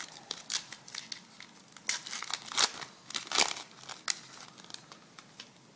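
A 2011 Topps Chrome foil card pack wrapper crinkling as it is torn open and handled. It makes a run of irregular crackles, loudest in the middle, that die away about a second before the end.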